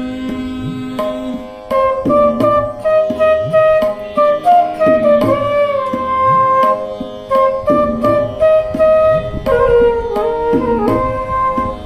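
Flute playing a melodic interlude of a ghazal between sung lines, with hand-drum strokes keeping time underneath.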